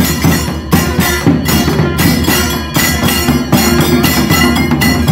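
Procession barrel drums beaten by hand and stick in a fast, loud rhythm, several strikes a second with a metallic ringing over them.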